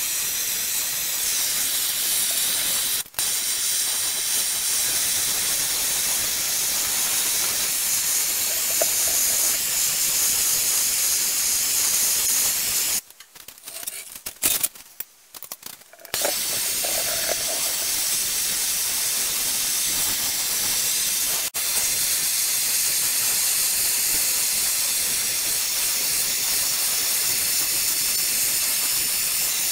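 MAPP gas hand torch burning with a steady hiss as it heats a bare cast-iron small-block Chevy engine block. About halfway through, the hiss drops out for a few seconds with a few sharp knocks from handling the engine stand, then comes back.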